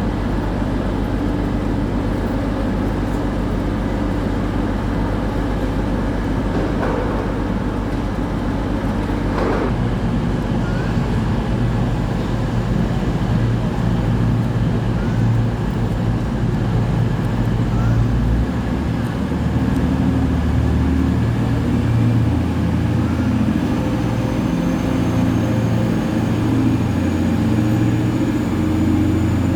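A train's engine running steadily, its low hum changing pitch about ten seconds in and again around nineteen seconds, with a faint rising whine near the end.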